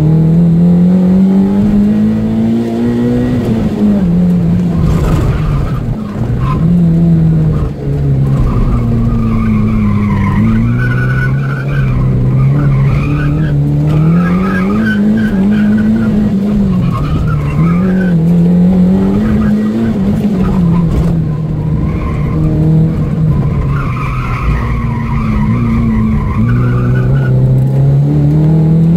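Opel Astra GSi engine heard from inside the car, revving up and easing off again and again as it is driven hard around a tight track lap, with tyres squealing through the corners, most clearly in the middle and near the end.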